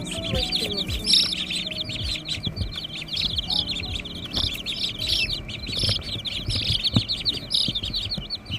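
A group of baby chicks peeping without a break: many rapid, high, overlapping chirps. Occasional soft knocks, the sharpest about seven seconds in.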